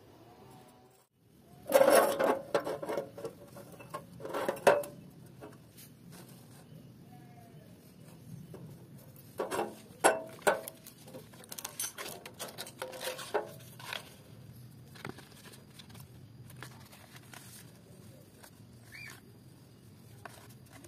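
Steel pipes being handled on a steel work table: irregular scrapes, knocks and clinks of metal on metal, loudest about two seconds in, near five seconds and near ten seconds, with quieter handling between.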